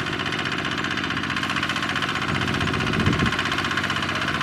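Kubota RT155 power tiller's single-cylinder diesel engine running steadily with a fast, even chug as it hauls a loaded trailer through deep mud.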